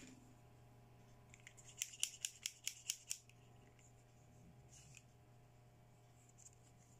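Pink plastic toy scissors snipped open and shut quickly, about eight light plastic clicks in a row about a second and a half in, then one faint click.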